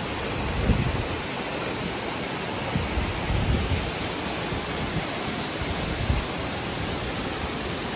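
Steady rushing roar of a high waterfall, an even wash of falling water, with a few brief low thumps mixed in.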